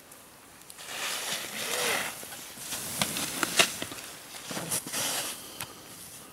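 Skis hissing and scraping across snow in several swells as turns are carved, with a few sharp clicks around the middle.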